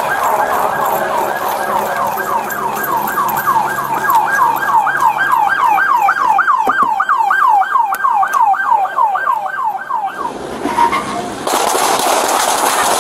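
Police car siren on a fast yelp, its pitch sweeping over and over at about three times a second. It cuts off about ten and a half seconds in, and a loud rushing noise follows near the end.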